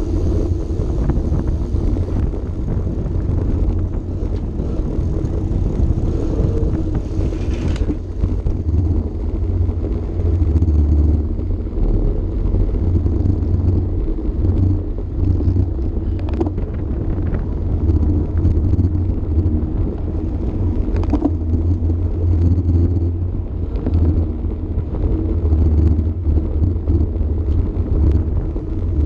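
Wind buffeting the microphone of an action camera on a road racing bicycle at speed: a steady, loud low rumble with tyre and road noise, and a couple of sharp clicks near the middle.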